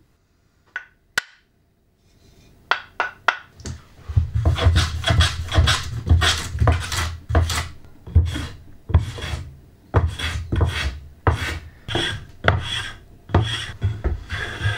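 Japanese wooden hand plane (kanna) being pulled over a hardwood board in short, quick strokes, each a scraping shave, about two a second. After a near-silent start with a couple of small knocks, the strokes begin about three seconds in.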